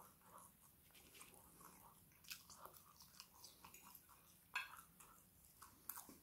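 Faint close-up chewing of fries and chicken, with soft wet mouth sounds and a few light clicks.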